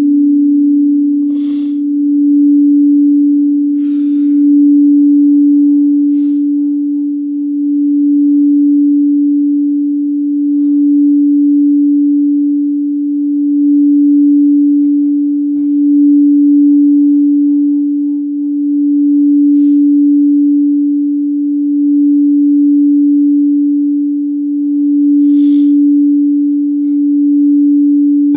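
Singing bowl ringing with one steady, sustained low tone that swells and fades in slow waves every two to three seconds, with a few faint clicks.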